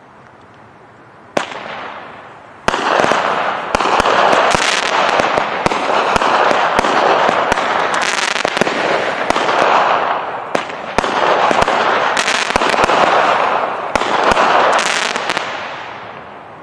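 Dominator Diamond Back 16-shot 200-gram firework cake firing. A sharp bang about a second and a half in, then from about three seconds a dense, continuous run of launches and bursts with many sharp reports that dies away near the end.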